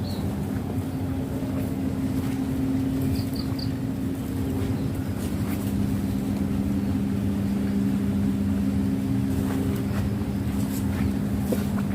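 A motor engine running steadily, a constant low hum that shifts slightly in pitch about five seconds in. Three short high chirps sound about three seconds in.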